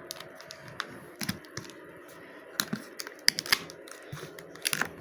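A cardboard box being opened by hand: irregular clicks, taps and scrapes of cardboard flaps and packing.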